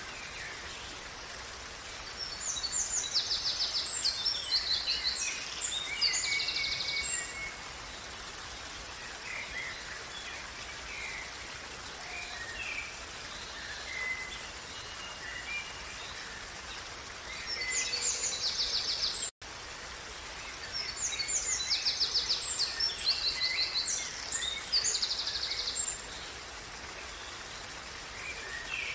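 Steady rush of a running stream, with a songbird singing two long phrases of rapid, high trills, one early and one past the middle, and a few short calls in between. The sound cuts out for an instant just before the second phrase.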